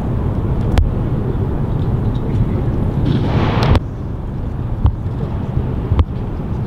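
Open-air stadium ambience: a steady low rumble of wind on the microphone, with a few sharp knocks, and a short hiss just past three seconds in that stops abruptly.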